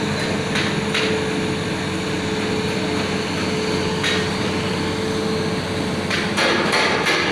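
Hitachi hydraulic excavator running with a steady engine and hydraulic drone, broken by sharp metallic knocks a few seconds apart that come quicker near the end.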